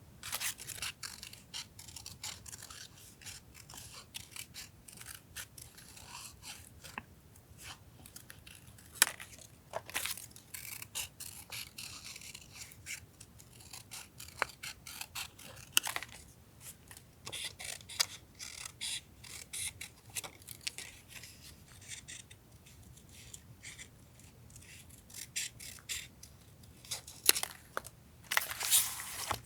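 Paper collage work on a journal: paper and stickers rustling and scraping, with frequent small clicks and several sharper snips or taps.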